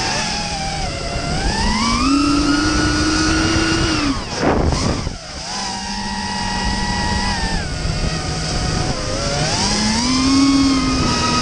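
FPV quadcopter's brushless motors and propellers whining close to the onboard camera, the pitch rising and falling as the throttle changes. At about four to five seconds in the whine briefly drops and surges back with a rushing sound.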